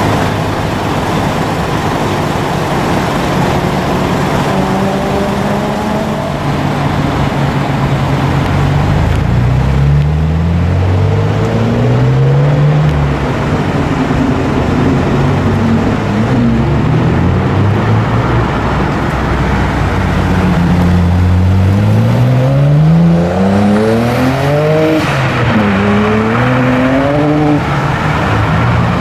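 Modified Japanese performance-car engines accelerating hard, their pitch climbing again and again through the gears with drops between shifts. The longest, loudest climbs come in the second half, over steady road and exhaust noise.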